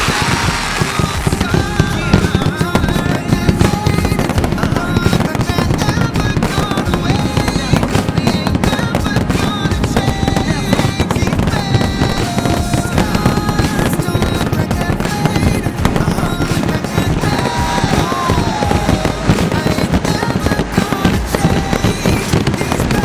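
Fireworks finale barrage: a dense, unbroken run of rapid aerial shell bursts and crackling, with no gaps between the bangs.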